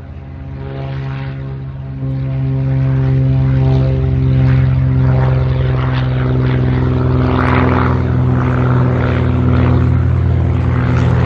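Propeller aircraft engine running at a steady pitch, fading in and growing louder over the first two seconds, then holding steady as if the plane is passing close.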